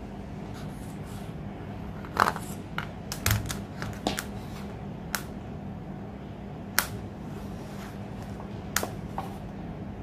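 Scattered light clicks and taps from fingers handling a fishing rod tip and its new guide while the guide is set in super glue. They are irregular: a quick cluster a couple of seconds in, then single clicks spaced out.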